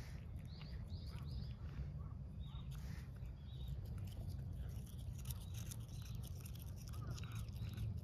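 Cat chewing and tearing at grass blades, a string of short crisp crunching bites.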